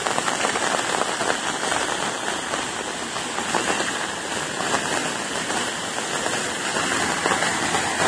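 Steady rain: an even hiss made of many small drop hits.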